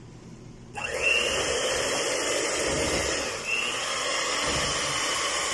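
Electric hand mixer switched on a little under a second in and running steadily, its beaters whisking cake batter of eggs, oil and water in a bowl.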